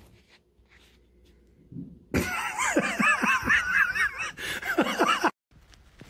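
A person laughing hard for about three seconds, with the laugh's pitch wobbling rapidly. It cuts off suddenly.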